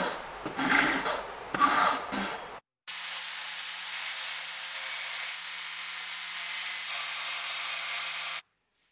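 Hand file rasping across a grey strip clamped in a vise, a few uneven strokes. After a short break comes a steady hiss lasting about five seconds, a little louder near the end.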